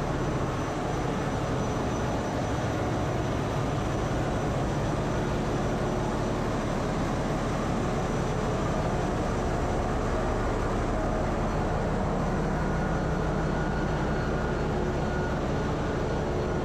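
Steady, loud drone of running diesel machinery in a ship's engine room, with the six-cylinder Hyundai HiMSEN 6H21/32 diesel generators close by.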